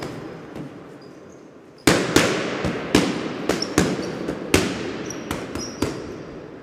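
Fireworks bursting: a string of sharp bangs, the loudest about two seconds in and about nine more over the next four seconds, each trailing off in an echo over a fading crackling hiss.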